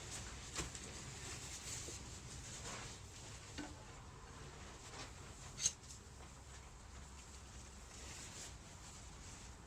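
Faint rubbing of a rag wiping a motorcycle fork tube clean, with a few light clicks and one sharper click about six seconds in.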